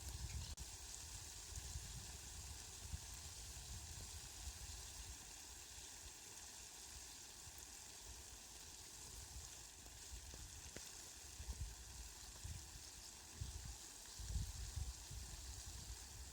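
Steady rain, a faint, even hiss, with low rumbles now and then that come more often in the second half.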